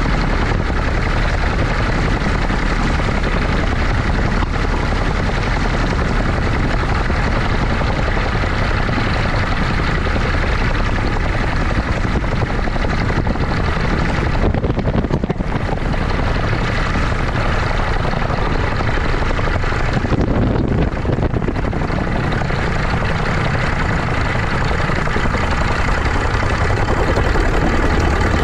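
Steady rush of wind and rotor noise on a NANO gyrocopter during an engine-off emergency descent in autorotation, heard from a camera mounted on the airframe. Near the end the machine is rolling on grass after touchdown.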